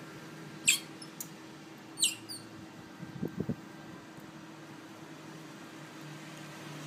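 Pet otter giving two short, high-pitched squeaks about a second apart, the second sliding down in pitch, followed by a few soft low sounds, over a steady low hum.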